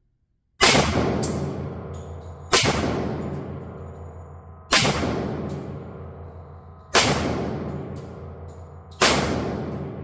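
Five shots from a Tisas D10 1911 pistol in 10mm, fired about two seconds apart, each with a long echoing decay and small clicks between them.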